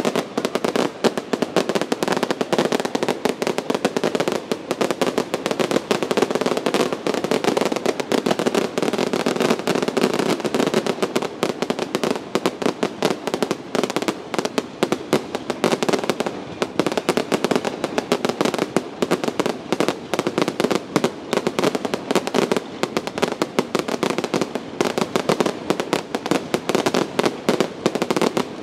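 Barge-launched fireworks going off in a continuous rapid crackle of many small pops a second, with no let-up and no single big boom.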